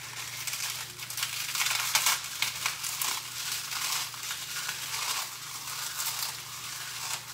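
Pork rinds being crushed by hand: an irregular run of dry crackling and crunching as the crisp rinds break into smaller pieces.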